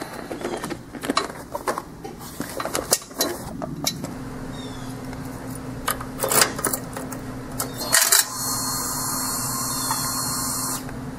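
Clinks and clicks of keys and switches as a motorcycle's ignition is switched on. A loud click follows, then the electric fuel pump primes with a steady high hiss for about two and a half seconds before cutting off suddenly. The engine is not started.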